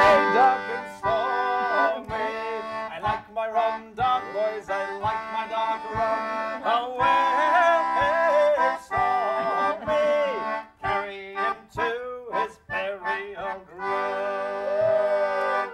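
Concertina played in a bouncy tune of steady chords, with a man's voice singing along in places.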